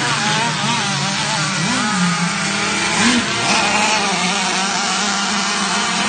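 Engines of several radio-controlled racing boats running flat out, their pitch swooping up and down as they throttle and pass.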